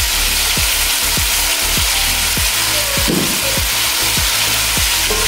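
Chicken pieces sizzling in hot oil in an aluminium pot, a steady frying hiss, over background music with a beat of about three thuds a second.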